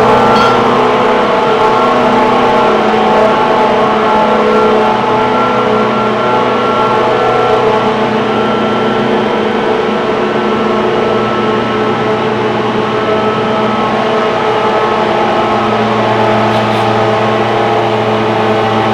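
Ingersoll Rand 132 kW variable-frequency rotary screw air compressor running: a loud, steady machine hum with several constant tones over a rushing noise.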